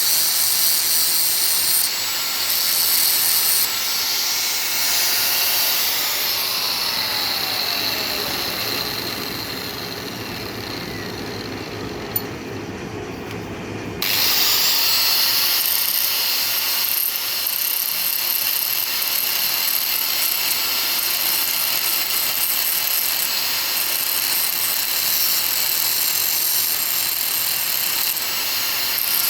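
A machine motor running with a steady hiss and whine. Its pitch slides down and it quietens for a few seconds, with a single click, then it comes back on suddenly at full speed.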